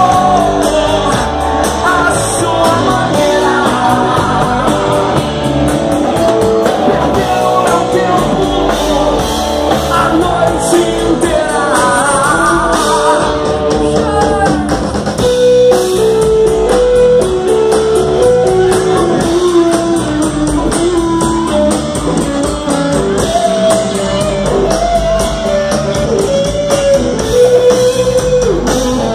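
Live rock band playing with electric guitars, bass guitar and drum kit, a stepping melody line carried over the band.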